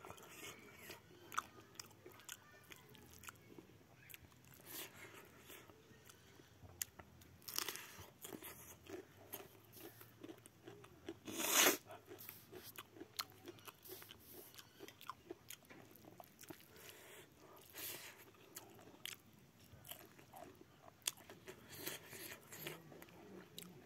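Close-up mouth sounds of eating: chewing and crunching, with many small wet clicks, as pork and rice are eaten by hand. A brief, louder noisy burst about halfway through.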